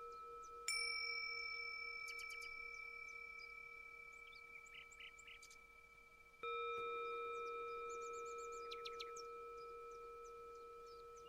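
A bell struck twice, about a second in and again past the middle, each strike ringing and fading slowly, with birds chirping throughout.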